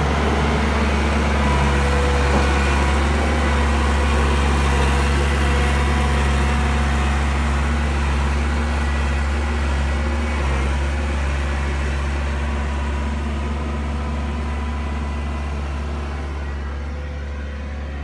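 Case 1845C skid steer's diesel engine running steadily, a low drone that slowly fades as the machine drives away.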